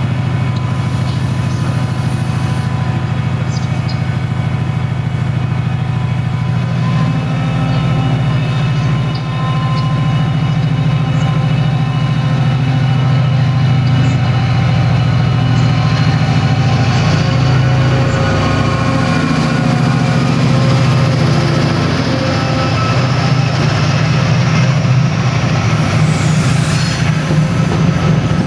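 Class 68 diesel-electric locomotive's Caterpillar V16 diesel engine running as it hauls its passenger train slowly through the station; about a quarter of the way in the engine note grows louder and fuller as it works harder, then holds steady. Near the end the wheels of the passing coaches add clicking and rattling.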